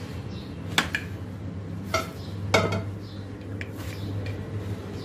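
Stainless-steel pressure cooker being closed and its weight set on the vent: about four sharp metal clinks with a short ring, over a steady low hum.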